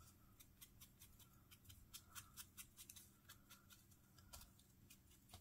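Faint, quick, irregular light taps and scuffs, several a second, of ink being dabbed onto the edges of die-cut cardstock pieces to darken them.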